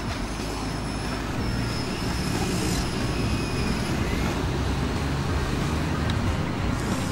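Scale RC CAT 308CR excavator running and tracking forward: a steady engine-like rumble with a faint high whine over it.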